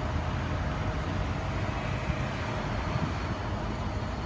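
Steady low background rumble with a faint steady hum and no distinct events.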